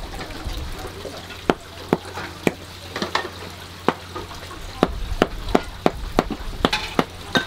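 Kitchen knife chopping octopus on a plastic cutting board: about a dozen sharp knocks at uneven intervals, coming closer together in the second half, over a low steady hum.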